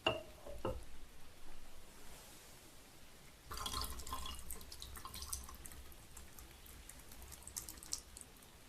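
Tea from the first short infusion being poured out of the brewing vessel: two light ringing clinks, then from about three and a half seconds in a trickling pour that tails off into drips.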